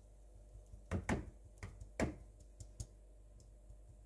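Metal mesh flour sieve tapped and shaken by hand to sift flour into a glass bowl, giving about half a dozen irregular sharp taps in the middle of the stretch.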